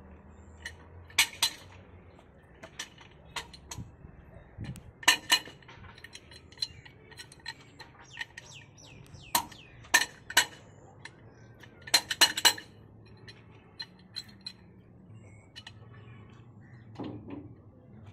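Sharp metallic clinks and taps in irregular clusters as the fittings of an old stationary heavy diesel engine are handled, the engine itself standing still and not yet running. Birds chirp in the background.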